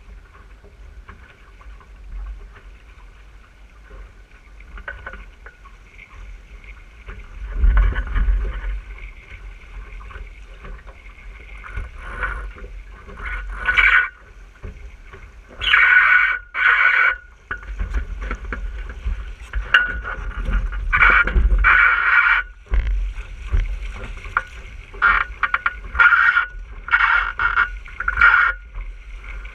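Water rushing and splashing along the hull of an RS600 dinghy under sail, in repeated louder surges as it hits waves, over a steady low rumble of wind buffeting the camera's microphone.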